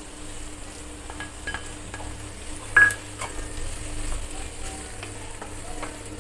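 Chopped vegetables sizzling in a stainless-steel kadhai while a spatula stirs them, with light scraping and a few clinks against the pan. One louder clink rings out from the steel about three seconds in.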